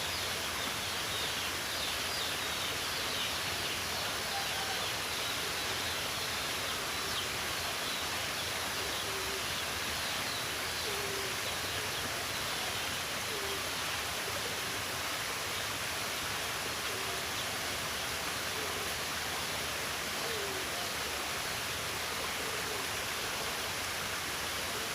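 Outdoor nature ambience: a steady rushing noise like running water, with birds calling over it. Short low notes come every few seconds, and faint high chirps are heard in the first few seconds.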